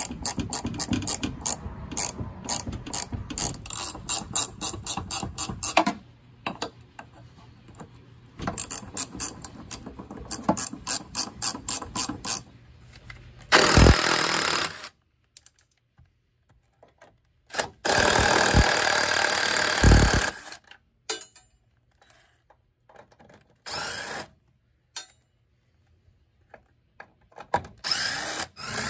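Hand ratchet wrench clicking rapidly in two stretches as it loosens leaf-spring shackle nuts, then a Porter-Cable cordless impact driver hammering in four short bursts, the longest about two and a half seconds, as it backs out the upper shock bolts.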